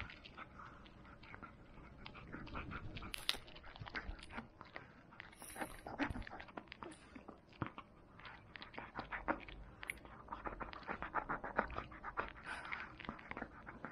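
A smooth-coated chihuahua crunching and gnawing a duck knee-joint bone, with a steady run of irregular sharp cracks and crunches as the bone and cartilage break into fragments, coming thickest near the end.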